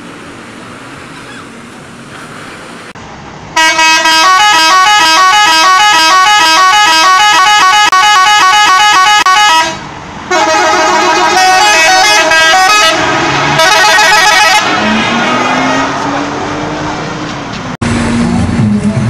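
Bus 'telolet' musical horn blasting a fast tune of alternating notes, starting suddenly about three and a half seconds in after steady street noise, breaking off briefly and then playing again for a few more seconds.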